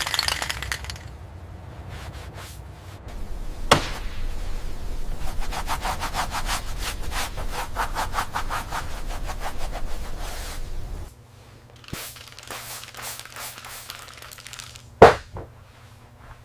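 Hand-tool scraping strokes, quick and rhythmic from about five to ten seconds in. There is a sharp knock about four seconds in and a louder one near the end.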